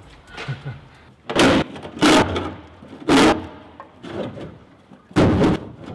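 Four loud, short clunks and scrapes from working on the underside of a car on a lift, with lighter clatter between them.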